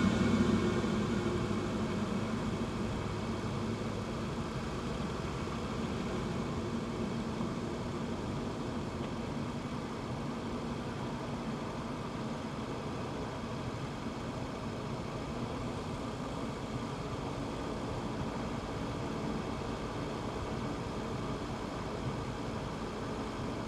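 Audi TT RS turbocharged five-cylinder engine running. It is louder for the first few seconds, then settles into a steady low hum with an even hiss.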